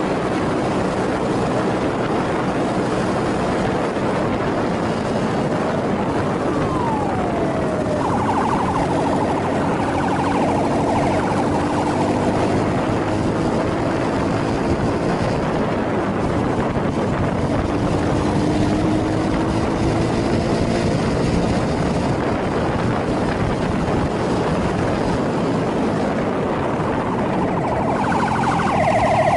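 Motorcycle engine running at speed under heavy wind noise, its pitch rising and falling with the revs. A warbling siren sounds about eight seconds in and again near the end.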